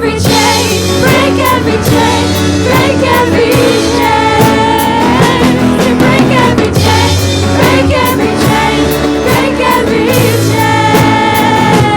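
Live Christian worship band playing with a sung melody over drums and backing instruments.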